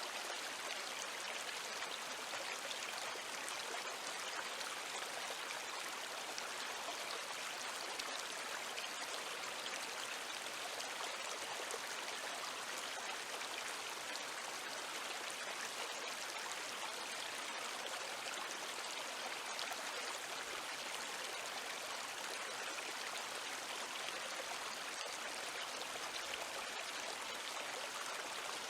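Flowing river water: a steady, even rush of water with no let-up.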